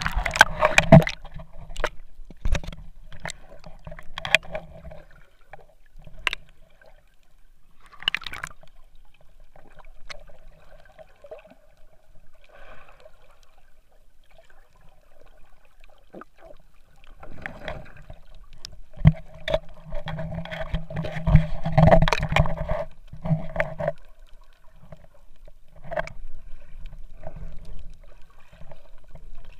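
Seawater sloshing and gurgling heard by an action camera dipped at the surface and then underwater, with scattered knocks and splashes from the swimmer moving. A faint, muffled hum comes and goes, strongest about twenty seconds in.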